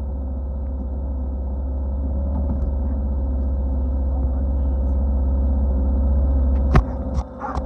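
ATV engine idling steadily after the throttle is let off, with a few sharp clicks near the end as the engine sound briefly drops.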